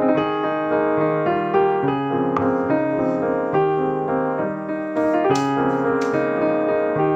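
Background piano music, a steady run of notes. A few faint clicks come through about five seconds in.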